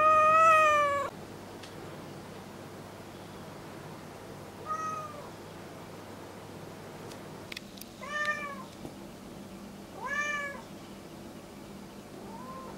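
Domestic cat meowing: one long, loud meow that ends with a downward slide about a second in, then three short meows, each rising and falling, about two seconds apart, and a faint last one near the end.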